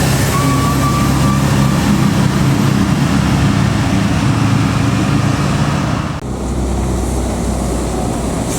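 Tour bus's diesel engine running loud as it passes, with tyre and road noise. About six seconds in the sound turns abruptly duller and deeper.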